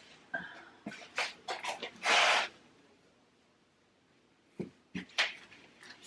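Cloth wiping and scrubbing a refrigerator's outer surface in short strokes, with a brief hiss about two seconds in, then three light knocks near the end.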